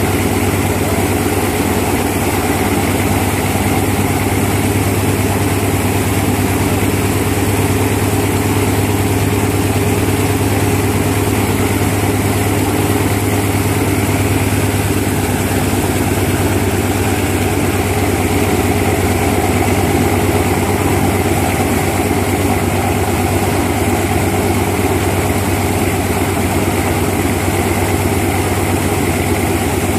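Antonov An-2's nine-cylinder radial engine idling steadily, turning its four-bladed propeller.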